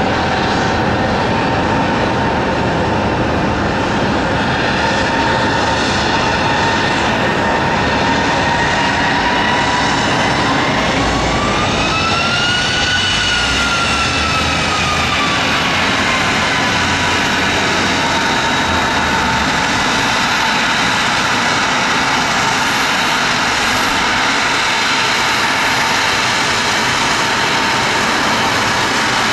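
Bombardier CRJ-700 regional jet's turbofan engines running at low power as it taxis in to the gate: a steady rushing noise with a whine. About halfway through, the whine rises in pitch and sinks back over a few seconds as the engines spool up briefly.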